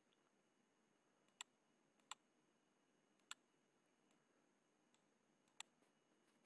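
Computer mouse clicking a few times, single sharp clicks spaced irregularly over near silence.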